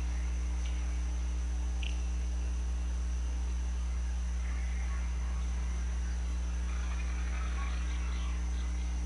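Steady low electrical mains hum with a faint high whine above it, unchanging throughout.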